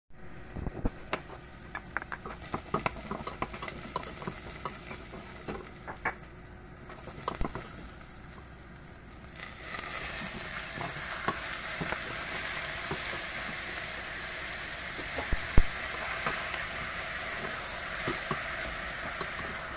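Wooden spoon stirring and clacking against a stainless steel pot with food frying faintly. About nine and a half seconds in, shrimp go into the hot pot and a steady sizzle starts, louder than before, with the spoon still clacking through it and one sharp knock about fifteen seconds in.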